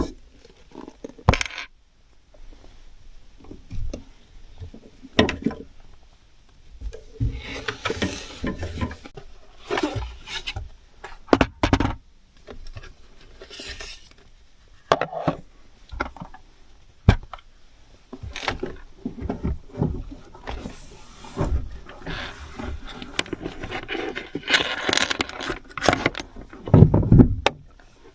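Spoon or cutlery scraping and clinking against a dish during a meal of retort curry, with irregular small knocks and scrapes.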